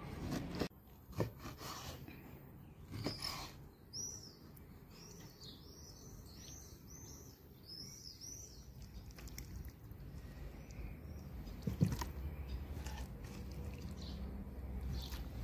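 A knife chopping through beef liver onto a wooden cutting board, giving a few sharp knocks early on and one more near the end. In the middle, a small bird chirps in a quick run of short, repeated high notes for several seconds.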